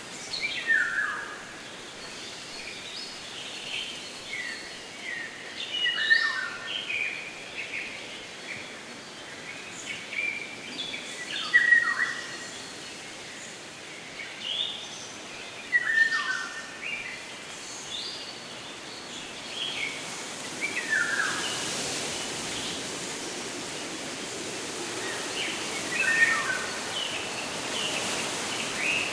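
A songbird singing a short phrase of quick falling notes, repeated about every five seconds, over a steady outdoor background hiss.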